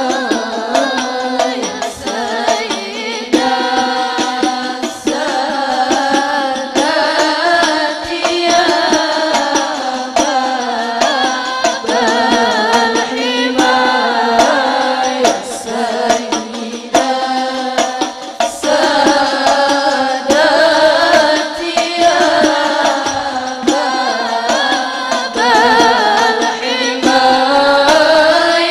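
Young women's voices singing an Arabic qasidah (sholawat) in a melismatic style, accompanied by banjari hadrah frame drums beating a steady rhythm.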